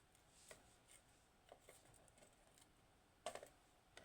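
Faint, scattered light clicks of small metal lock parts (pins of a dismantled dimple lock) being handled and set down, the loudest about three seconds in.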